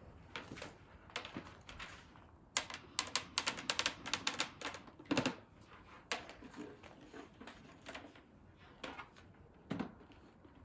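A quick run of sharp clicks and knocks, about a quarter of the way in, then a few scattered single knocks, from hands handling a plastic printer and its power cord.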